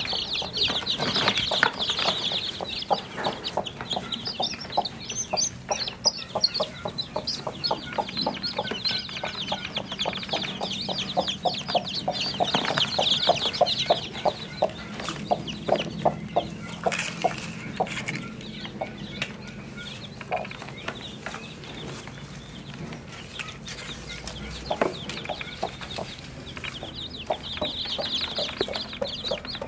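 Newly hatched chicks peeping in a high, rapid chorus while the broody hen clucks in short repeated notes. The peeping is thickest at the start, about halfway through and again near the end.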